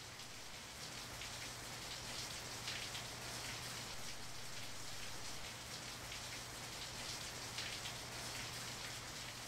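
Steady rain falling on wet asphalt and a leaf-littered mulch bed, with scattered closer drop hits, over a faint steady low hum.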